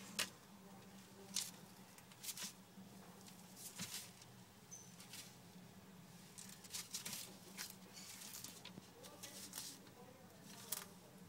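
A savannah monitor moving about on newspaper: faint, irregular taps, scratches and paper crinkles from its claws and snout, over a steady low hum.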